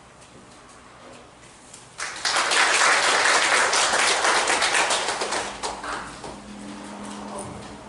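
Audience clapping for about four seconds. It starts suddenly about two seconds in and tapers off.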